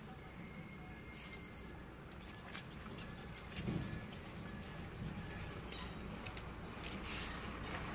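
Steady high-pitched insect drone over outdoor ambience, with a few faint chirps and clicks and a soft low thump about three and a half seconds in.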